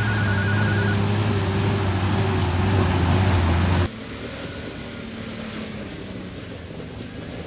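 Off-road vehicle engine running steadily with a low hum. It stops abruptly about four seconds in, leaving a much quieter outdoor background.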